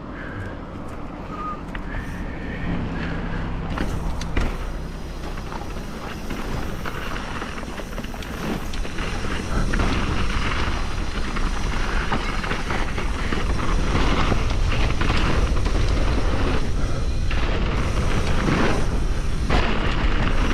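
Mountain bike ridden fast down a dirt trail, heard from a chest-mounted action camera: wind buffeting the microphone, tyres rumbling over dirt, and the bike rattling, with frequent knocks. It grows louder as speed builds.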